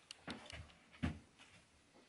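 A few faint knocks and clicks of handling at a wooden workbench, with one short, louder knock about a second in.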